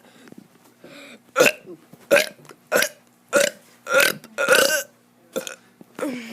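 A child burping on purpose: a quick run of about seven short burps, roughly one every half-second, with a longer one about four and a half seconds in.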